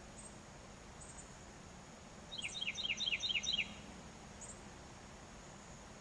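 A songbird gives a quick run of about six sharp, falling whistled notes about two seconds in, over a steady high insect drone and a few faint high chirps.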